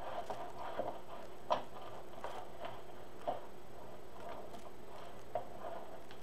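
A few faint, irregularly spaced clicks and taps from burlap deco mesh being gathered by hand and tied with a pipe cleaner, over a steady background hum.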